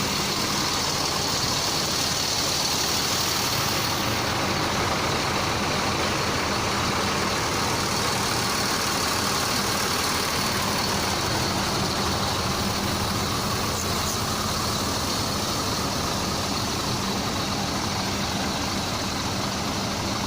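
Steady bus engine and road noise heard from inside the bus, an even rush with a faint low hum that holds unchanged throughout.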